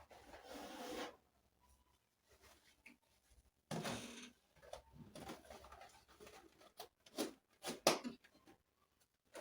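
Handling sounds while storing vegetables: rustling and shuffling with a few sharp knocks, like containers being moved and set down.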